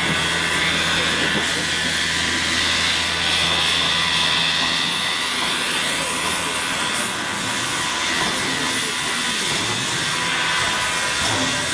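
P36 steam locomotive standing with steam hissing steadily. A low hum lies under the hiss for the first four or five seconds, then fades.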